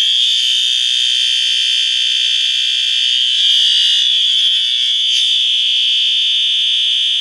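System Sensor P2WA fire alarm horn strobe sounding a steady, continuous high-pitched tone, set off by a pulled manual pull station on a Notifier NFW-50C panel set to continuous.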